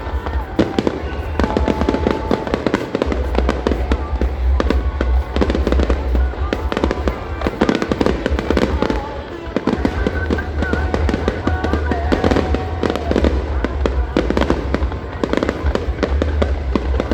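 Fireworks bursting in rapid succession: a dense, continuous crackle of sharp bangs over deep booms.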